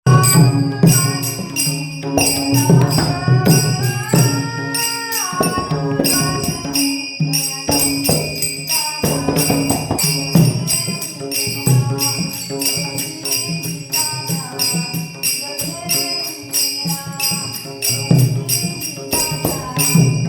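A woman singing a Marathi abhang devotional song, her voice gliding between held notes, with metal hand cymbals struck in a steady rhythm.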